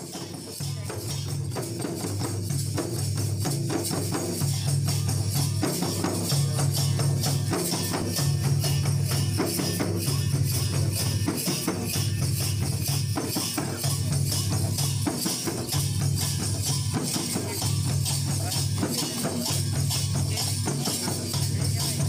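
Background music with a steady beat: repeating low bass notes under fast shaken hand percussion, fading in over the first few seconds.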